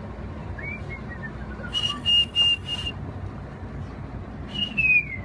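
A person whistling loudly. A faint falling whistle comes first, then a high held note broken into several short blasts, then a second falling whistle near the end, over a steady low rumble.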